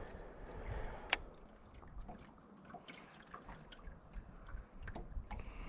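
Faint water sounds around a small fishing boat, with scattered small ticks and knocks and one sharp click about a second in.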